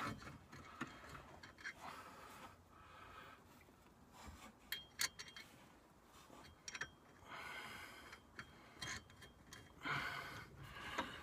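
Faint socket ratchet clicking in short, irregular runs as a sway bar link nut is tightened, with occasional small metal clicks.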